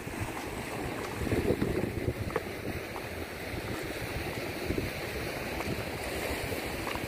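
Wind buffeting the microphone, an uneven low rumble over a steady outdoor wash, with a few faint ticks.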